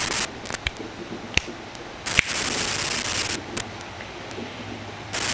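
Hiss and crackle of electrical interference in a Rode VideoMic GO's audio on a Canon 80D, with a few sharp clicks and stretches of louder hiss. The mic cable is wrapped in aluminum foil as a makeshift shield against radio noise from a nearby phone's Wi-Fi.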